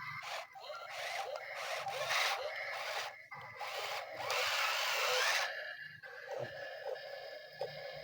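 Small electric motors and plastic gears of toy RC construction vehicles whirring in repeated short bursts, the longest about four seconds in, with a rubbing, scraping sound.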